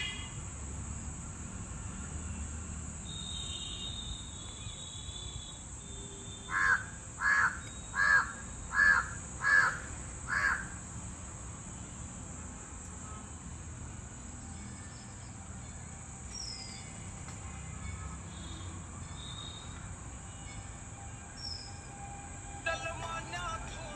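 A crow cawing six times in a quick, evenly spaced series, over a steady high-pitched insect drone. A few faint chirps from smaller birds come later.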